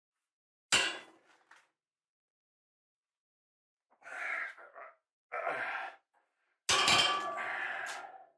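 Steel keel bolt rods being handled and knocked: a sharp metallic clang with a short ring about a second in, then bouts of metallic clinking and scraping. The last bout is the longest and loudest, starts with a sharp hit and rings on for over a second.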